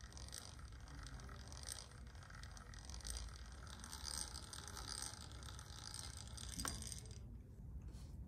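Steady rubbing and scraping of hand work on a surface, which stops about seven seconds in; a few light clicks follow.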